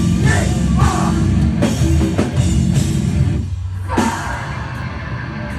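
Live heavy metal band playing loud, with heavy drums and distorted guitars. The low end drops out briefly about three and a half seconds in before the full band comes back.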